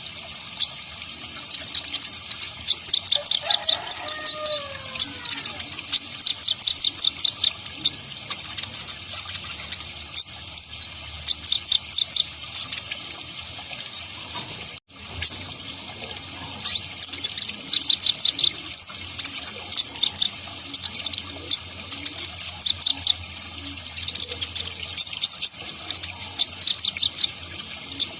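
Kolibri ninja sunbird singing a fast, high-pitched song of rapid chirps in repeated strings, with a brief break about halfway through.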